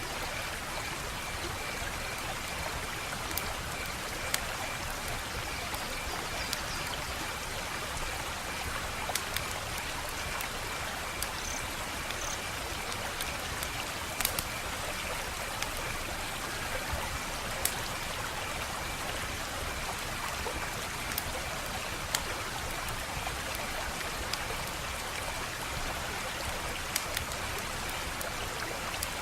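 Wood fire crackling: a steady hiss with sharp pops scattered through it, about a dozen. A faint, high, evenly pulsing trill runs underneath, the night-insect sound of the ambience.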